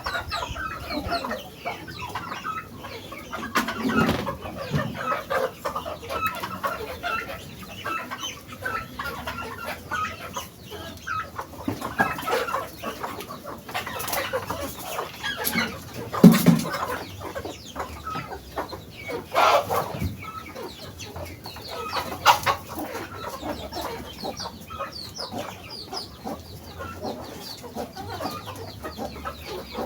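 A flock of chickens clucking and chirping continuously, with a few louder calls standing out here and there.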